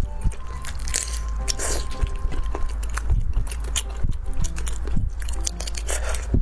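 Cooked shrimp being peeled by hand close to the microphone: the shell crackles and snaps in a quick, irregular run of sharp clicks.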